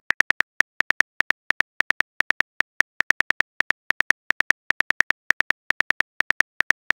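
Smartphone on-screen keyboard click sounds: a fast, uneven run of short taps, about six a second, as a text message is typed out.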